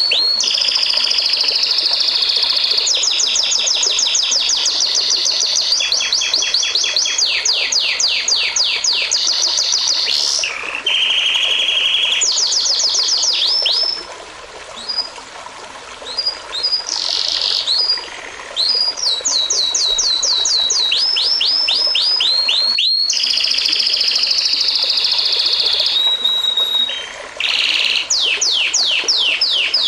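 Songbird song in fast trills of repeated sweeping whistled notes, several a second, in phrases broken by short pauses, over a steady hiss of running water from a stream.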